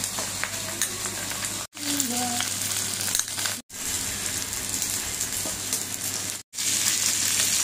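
Whole fish sizzling as they grill on a banana leaf on an electric hotplate: a steady frying hiss over a low steady hum, broken by three brief sudden gaps.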